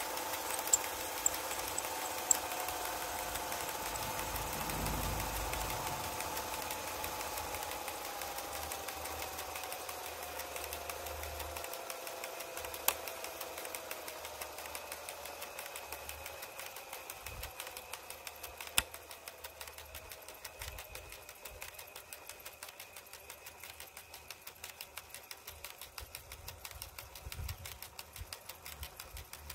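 Universal electric motor turning a railway tachogenerator, slowing down as its speed is turned down: a whine that falls steadily in pitch, over a fast, even mechanical ticking. Two single sharp clicks stand out along the way.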